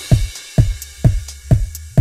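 Electronic background music with a steady kick-drum beat, about two beats a second, over a bass line.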